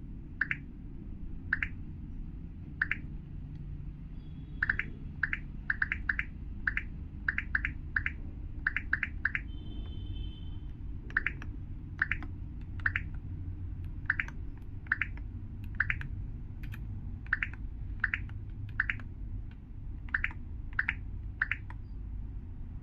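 Mechanical keyboard keys pressed one at a time: crisp single clacks at an uneven pace, now spaced out, now in quick runs of several, over a steady low hum.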